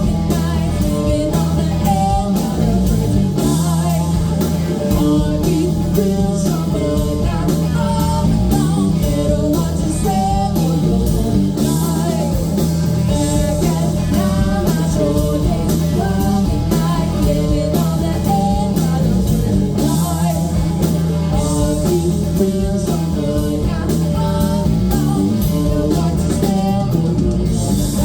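Blues-rock band playing live: an electric guitar lead line with bends and vibrato over bass and drums, with no sung words.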